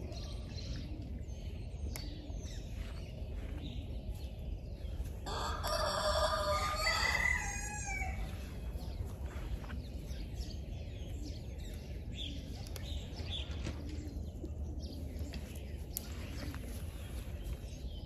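A rooster crowing once, about five seconds in, lasting some two and a half seconds, over a low steady rumble and faint scattered clicks.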